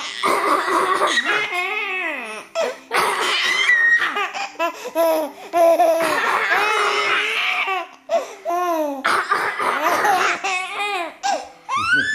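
An eight-month-old baby laughing in repeated bursts of belly laughs, set off by an older brother's coughing.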